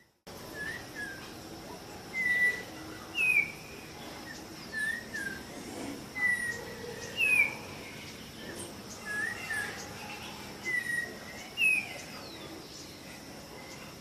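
Yellow oriole singing: a loose series of about a dozen clear, short whistled notes, several slurring upward, spaced about a second apart. Faint high chips of other small birds sound behind it.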